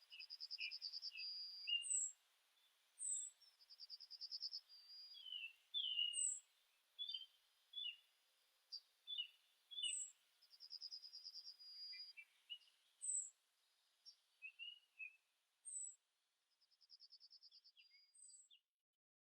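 Several birds singing and calling, faint: a thin high descending note repeated about every two seconds, a short buzzy trill every few seconds, and assorted quick chirps in between.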